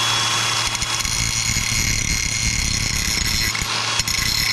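A power tool or shop machine running steadily in a metal workshop, a constant noise with a high whine over a low hum.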